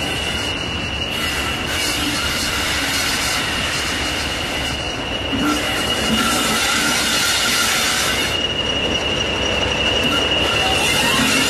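Diesel locomotive engine running as it draws nearer, growing louder over the second half, with a steady high whistle throughout, typical of a Class 40's turbocharger.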